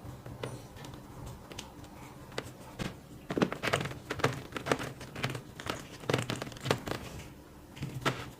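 Packaging being handled and opened, crinkling with some tearing; faint at first, then a dense run of irregular crackles and rustles from about three seconds in until near the end.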